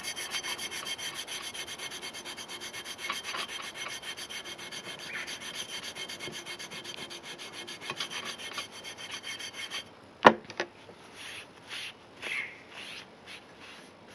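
Japanese sabitoru rubber rust eraser scrubbed rapidly back and forth over a steel knife blade, rubbing off surface rust. The scrubbing stops about ten seconds in with a sharp click, and a few softer, separate rubs follow.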